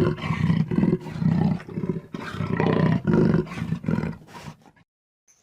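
Jaguar roaring in a run of repeated deep, rough calls that die away about four seconds in.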